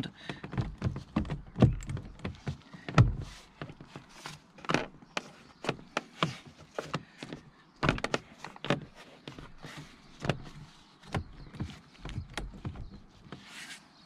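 Wood-grain trim strip on a BMW E53 X5 door panel being pressed and tapped into its plastic clips by a gloved hand: a string of irregular knocks and clicks as it seats.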